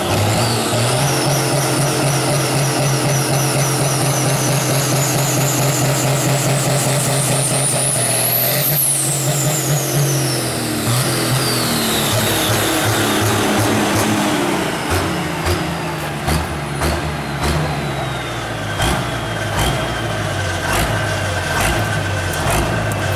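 Pulling tractor's engine running as it drives past. A high whine rises in pitch as it approaches and falls away after it passes, about nine seconds in. It then slows and runs at a lower, uneven beat once stopped close by.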